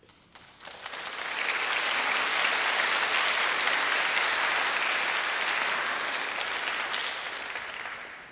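Audience applauding. The clapping builds up over the first second or so, holds steady, then dies away near the end.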